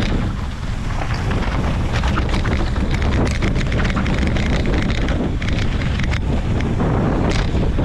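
Wind buffeting the microphone at riding speed on a mountain bike descending a rocky dirt trail, over the crunch of tyres on dirt and rock and scattered clicks and clatters from the bike hitting bumps.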